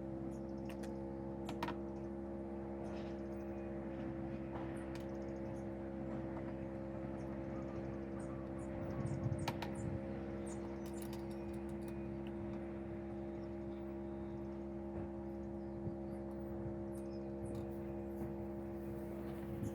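Light, scattered clicks and taps of roof bar fittings being handled and fitted, with a small cluster about halfway through, over a steady background hum.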